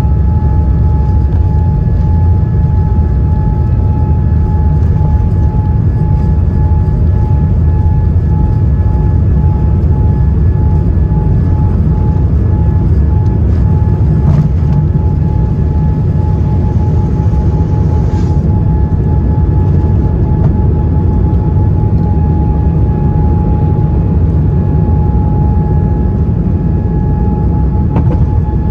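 Cabin noise of a Boeing 787-9 during its takeoff roll and lift-off, heard over the wing: the jet engines at takeoff thrust give a loud, steady rumble with a steady whine above it.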